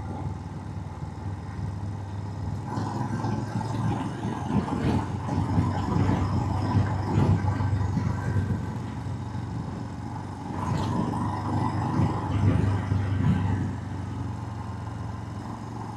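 Motorcycle engine running while riding, with wind and road noise on the microphone. It grows louder a few seconds in and again past the middle.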